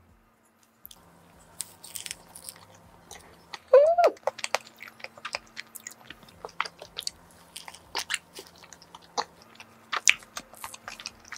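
Close-miked mouth sounds of biting into and chewing a soft matcha-chocolate cream-filled chapssaltteok: many short wet clicks and smacks. About four seconds in comes one brief, loud hummed vocal sound that rises and falls in pitch.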